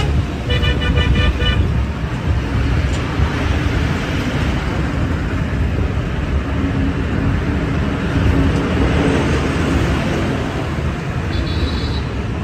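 Steady road and traffic noise heard from inside a moving car. About half a second in, a vehicle horn sounds in a rapid pulsing series for about a second, and a short high beep sounds near the end.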